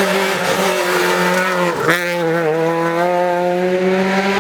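Rally car running hard at high, nearly steady revs, with a brief dip and break in the pitch about two seconds in.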